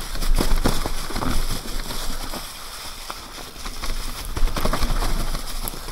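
Electric mountain bike riding down a trail covered in dry fallen leaves: tyres crunching and rustling through the leaf litter, with irregular knocks and rattles from the bike over bumps and wind noise on the microphone. It eases off for a second or so in the middle, then picks up again.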